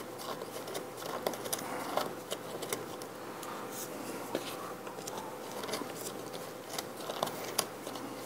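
A small drill bit turned by hand into a wooden popsicle-stick propeller held in a wooden jig, giving irregular scratchy scraping with many light clicks.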